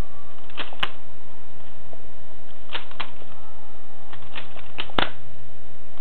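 Balisong (butterfly knife) being flipped and folded in the hand, its metal handles clacking shut: sharp clicks in quick pairs about a second in and near the middle, then a fast run of four or five near the end, the last the loudest.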